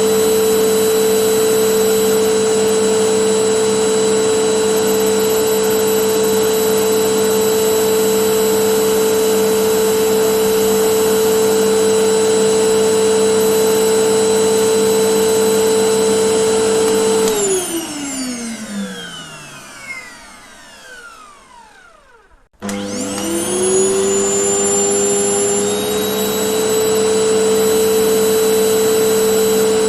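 Vacuum cleaner motor running with a steady whine. About two-thirds of the way through it is switched off and winds down, its pitch falling over several seconds to a brief silence. It is then switched back on, the whine rising quickly back up to full speed.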